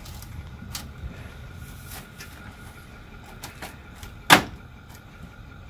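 Plastic truck grille being pushed into place: a few light clicks and knocks, then one loud sharp snap about four seconds in as it seats.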